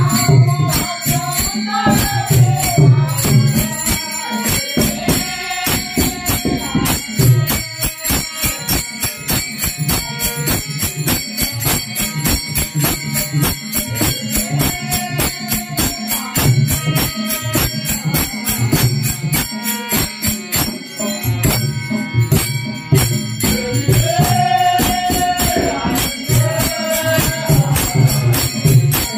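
Devotional Marathi bhajan: voices singing to a harmonium, with a pakhawaj barrel drum and many pairs of taal hand cymbals clashing in a steady, even beat.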